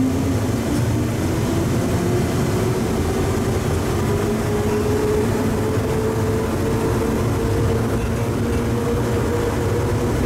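Atlanta Plane Train, a rubber-tyred automated people mover, running through its tunnel: a low steady rumble under an electric motor whine that rises steadily in pitch as the train gathers speed.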